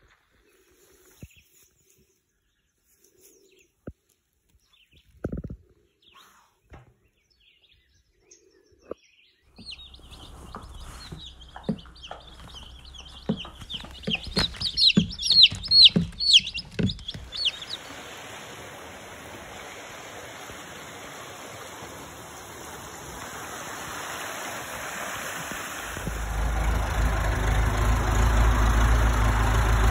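Young chicks peeping in a brooder tote: many short, high cheeps, loudest for a few seconds, then cut off. Near the end a tractor engine starts running steadily.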